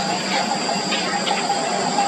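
A few faint, short cheeps from nestling birds over a steady hiss.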